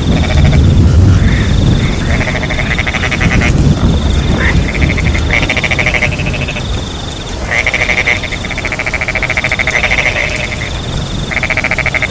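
Frogs calling in repeated pulsed trills a second or two long, with crickets chirping in a high, steady band that breaks off and resumes, over steady rain. A low rumble of thunder sits under the first few seconds.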